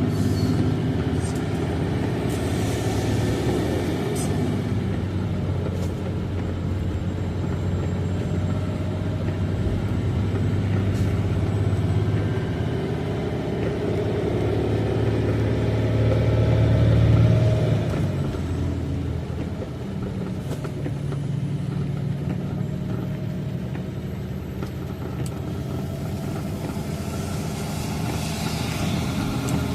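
Semi truck's diesel engine heard from inside the cab, a steady low drone under engine-brake load on a long downhill grade. It swells about 16 seconds in, then drops off a second later and runs on lower.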